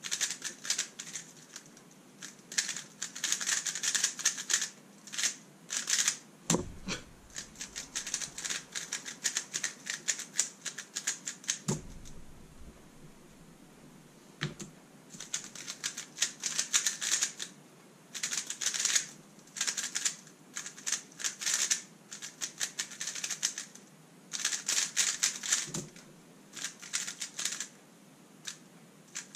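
Thunderclap v3 M magnetic 3x3 speedcube being turned fast, giving rapid plastic clicking in runs of one to three seconds with short pauses between them. There are a few dull thumps in between.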